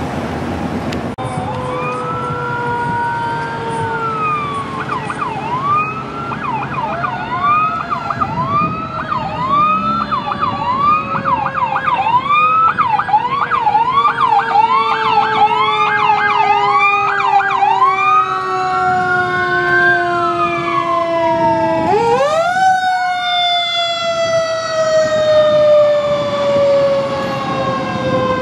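Fire apparatus sirens on an emergency response, several tones at once. One siren switches from a slow wail to a fast yelp for about ten seconds and back to a wail. Under it, a deeper siren tone slides slowly downward, jumps sharply back up about two-thirds of the way through, then falls slowly again.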